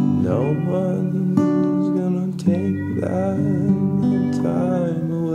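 Song with strummed acoustic guitar chords and a melody line that slides and bends in pitch over them.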